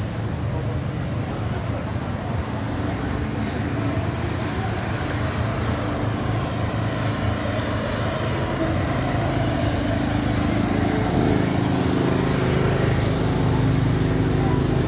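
Steady low engine hum with outdoor background noise, growing a little louder in the second half.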